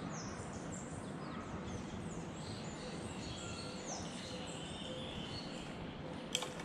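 Birds chirping in repeated short, high, downward-sweeping calls over a steady outdoor hiss, with one sharp click near the end.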